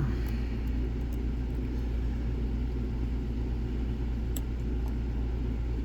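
Steady low rumble of background noise, with a few faint, sharp clicks of a lock pick working the pins of a Dom IX Saturn lock.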